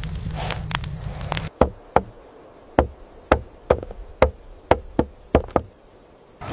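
Campfire crackling over a low rumble, cut off abruptly about a second and a half in. Then about ten sharp knocks, roughly two a second, of a stone tool tapping at an animal hide.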